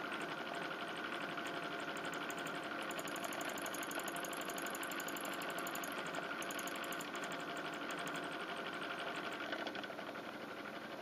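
Sharp AY-P28V5 air conditioner indoor unit running in heating mode with an abnormal noise: a steady, fast-repeating mechanical buzz that eases slightly near the end.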